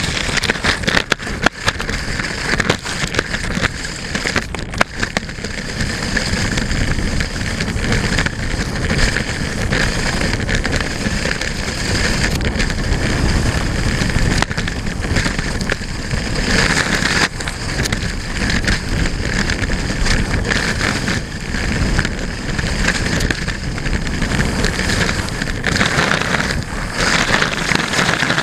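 Salomon S-Lab Skate cross-country skis running fast over packed snow: a steady scraping hiss with constant fine crackling, mixed with wind rushing over the microphone.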